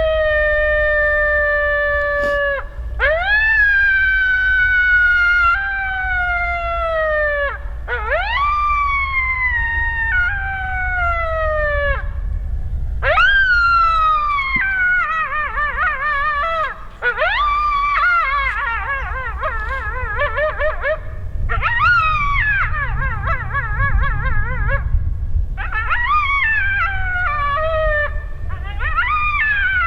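Coyote howling: several long howls, each rising and then sliding slowly down, followed from about halfway by several coyotes howling and yipping together with quavering, overlapping pitches, a pack answering the howl.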